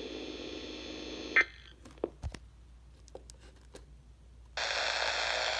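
Steady hiss from a NOAA Weather Radio receiver in the pause between broadcast messages. The hiss cuts off with a click about a second and a half in, a few faint clicks follow, and the hiss comes back about a second before the end.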